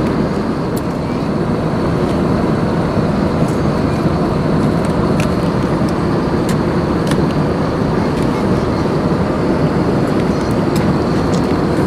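Steady roar inside the passenger cabin of an Airbus A319-111 in cruise flight: engine and airflow noise from its CFM56-5B engines. Faint crackles of paper and card being handled come now and then over it.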